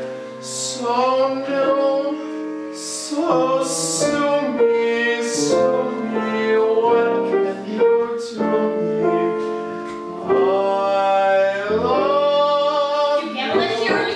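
A woman singing a musical-theatre song in a full, operatic style, holding long wavering notes and sliding between pitches, accompanied by grand piano.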